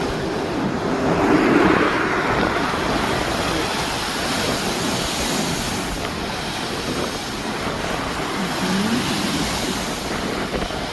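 Strong wind and rough sea surf, a steady rushing noise that swells briefly about a second and a half in.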